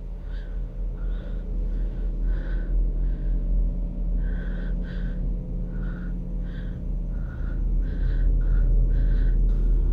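A low, rumbling horror-film drone that slowly swells in loudness, with short soft sounds repeating irregularly about twice a second over it.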